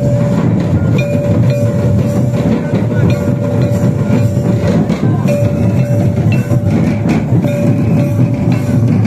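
Santali traditional dance music: hand-beaten barrel drums played in a dense, continuous rhythm, with a thin high note held for a second or two at a time that breaks off and comes back several times.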